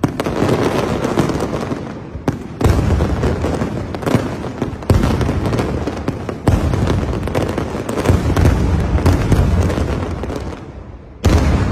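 Aerial fireworks display: a continuous barrage of shell bursts and crackling, with deep booms landing every second or two and one last heavy burst near the end.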